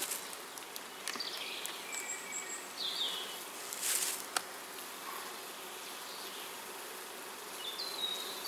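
Honeybees buzzing around an opened hive, a steady hum, with a few light clicks and a brief rustle about four seconds in.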